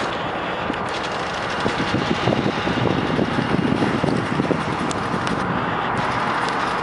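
Steady rumble and hiss of trains and machinery in a railroad yard. A stretch of louder, irregular low knocking and rumbling runs from about two to five seconds in.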